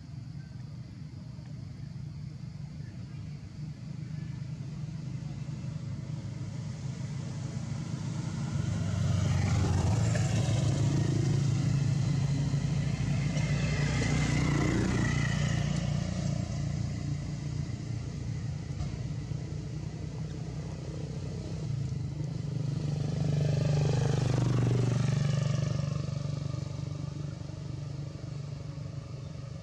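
Motor vehicles passing by twice: a low engine sound swells, then drops in pitch and fades each time.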